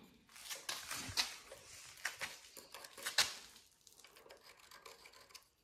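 Scattered light clicks and knocks of a metal swivel caster being handled and held up against a wooden 2x4 leg.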